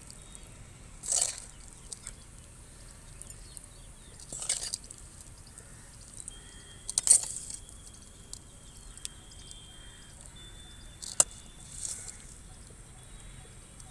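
A metal spoon scooping and scraping spiced pickle out of a metal kadhai into a glass bowl: a handful of short scrapes a few seconds apart, with one sharp click a little before the end.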